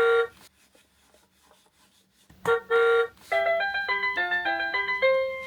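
Winfun Animal Friends Bus toy's electronic sound chip: two beeps, short then long, like a toy horn, then a quick tune of short chiming notes ending on one held note that fades away.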